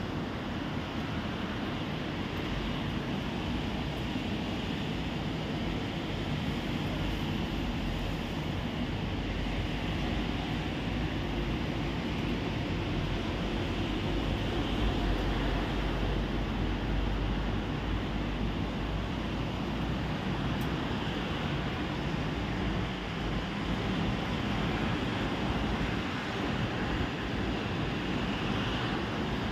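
Steady hiss of heavy rain, with a low rumble underneath that swells around the middle.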